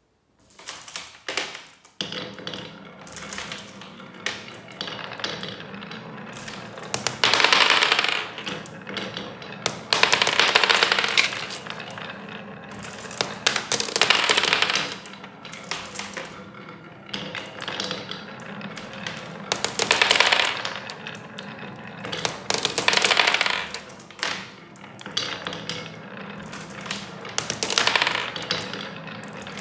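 Marbles rolling and clattering down a handmade marble run of rain gutter and wooden rails: many sharp clicks as they strike the track, with a rolling rush lasting a second or two every few seconds.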